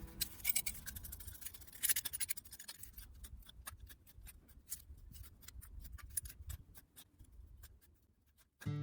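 Faint, irregular clicks and scratching, several a second, fading out into silence near the end.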